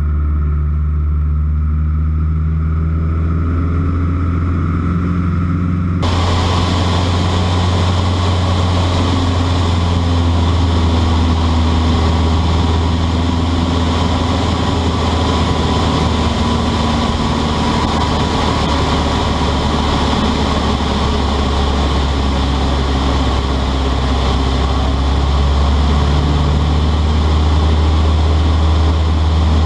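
Light single-engine aircraft's piston engine and propeller droning steadily in flight. About six seconds in, the sound turns abruptly brighter, with added hiss.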